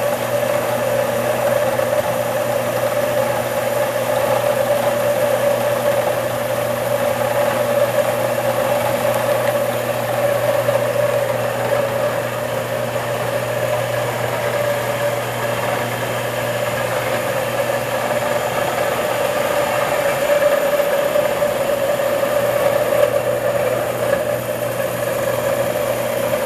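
A machine running with a steady, unbroken hum: a strong mid-pitched tone over a lower one, with a rushing hiss around them.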